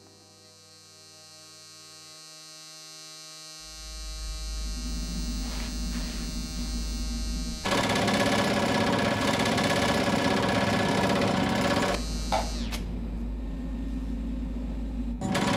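A steady low electrical hum that switches abruptly to a loud, steady buzzing rattle from a vibration exercise machine, about halfway through; the hum briefly returns with a short falling squeak before the buzz cuts back in near the end.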